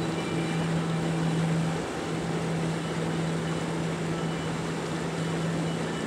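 River water rushing over shallows, a steady hiss, with a steady low hum underneath.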